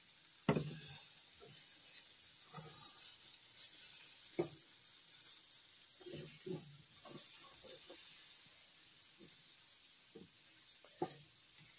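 Lamb leg steaks sizzling on a hot charcoal grill grate, a steady hiss, with a few sharp clicks as metal tongs move the meat.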